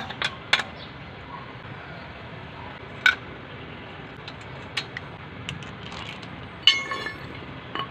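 Scattered metal clinks and knocks of a wrench working on the wheel nuts, with one louder ringing clank near the end, over a steady background hiss.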